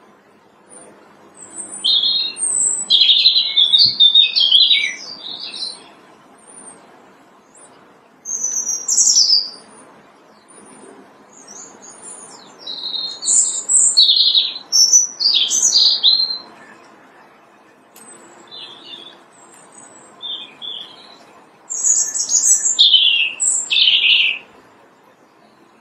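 European robin singing: a series of high, warbling phrases of a second or a few seconds each, with pauses between them.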